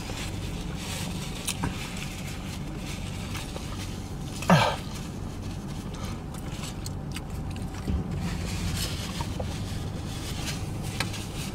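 A man's single short throat-clearing sound about four and a half seconds in, over a steady low hum inside a car, with a few faint rustles.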